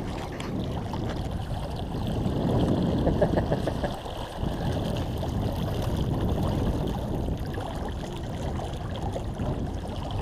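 Water rushing along the hull of a Laser 28 sailboat under sail, with wind buffeting the microphone; an uneven, steady noise without speech.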